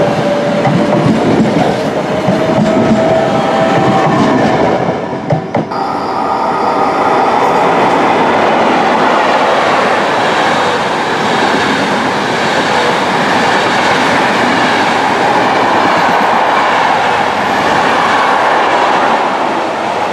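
A regional train passing close by with a steady whine over the rumble of its wheels. About five and a half seconds in, the sound breaks off and a Frecciabianca express train takes over, passing through the station at speed as a continuous loud rush of wheels on rail.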